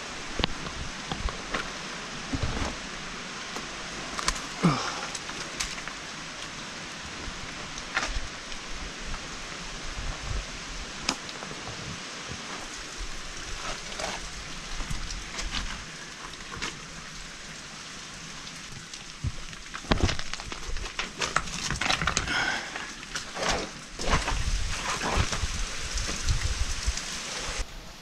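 Steady rush of falling water and drips from a waterfall and its spray, with scattered knocks, scrapes and rustles of someone moving over rocks and brush, busiest near the end.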